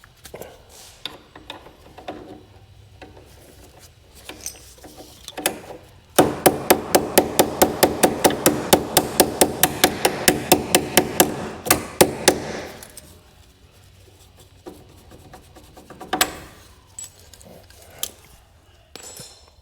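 A fast, even run of sharp knocks, about five a second for about six seconds, over a steady ringing tone, with scattered small knocks and clicks before and after.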